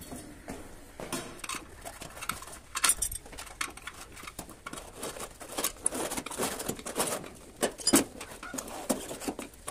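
Metal tyre levers clinking and scraping against a spoked motorcycle wheel rim as the first bead of a tyre is levered onto it. Irregular knocks and clicks, with one louder knock about eight seconds in.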